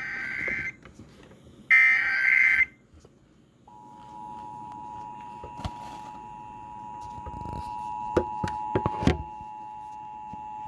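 Emergency Alert System tones opening a child abduction emergency alert: two short screeching SAME data bursts of the alert header, then, about four seconds in, the steady two-tone attention signal. A few short clicks sound over the tone.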